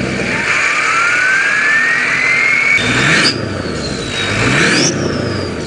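Turbo diesel engine under throttle, its turbocharger whistle climbing steadily in pitch for nearly three seconds. After a sudden change the whistle rises and falls twice as the engine revs up and back. The pronounced whistle is the sound a 10-blade turbo on a 6.0L Powerstroke is known for.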